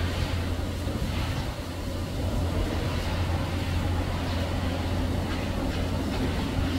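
Steady low rumble of distant vehicles or machinery, even throughout with no distinct events.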